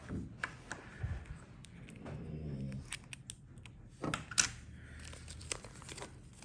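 Small fidget-toy parts being handled while a bearing is fitted into one: scattered light clicks and taps at uneven intervals.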